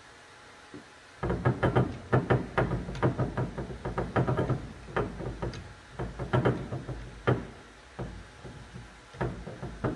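A paintbrush dabbed quickly against the wooden cupboard, making a run of sharp, irregular tapping knocks, several a second. It starts about a second in and thins out near the end.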